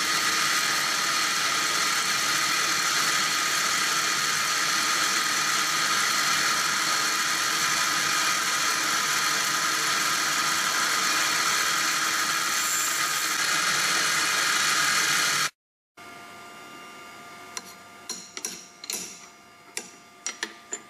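Wire EDM machine cutting a round bar: a steady, loud sparking hiss and buzz from the wire and its flushing fluid, which cuts off suddenly about 15 seconds in. A quieter machine hum follows, with a quick run of clicks and knocks near the end.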